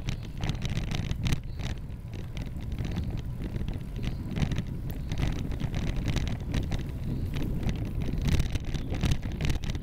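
Wind rumbling on the microphone of a camera riding along on a moving bicycle, with frequent small clicks and rattles from the ride.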